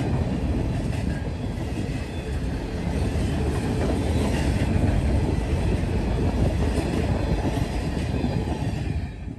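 Freight train cars (covered hoppers and tank cars) rolling past: a steady rumble of steel wheels on rail, clacking over the joints.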